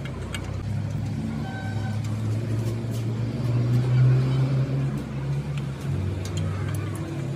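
A motor vehicle's engine running close by, its hum swelling to its loudest about four seconds in and then easing off, with a few light metallic clicks of hand tools.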